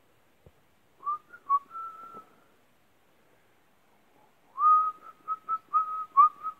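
A person whistling a short tune: a brief phrase about a second in, then a quiet gap, then a run of repeated held notes with small slides in pitch.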